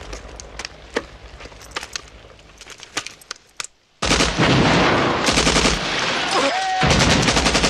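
Film battle soundtrack: a few scattered single gunshots over a fading low rumble, then heavy sustained machine-gun fire breaks out suddenly about four seconds in and keeps going.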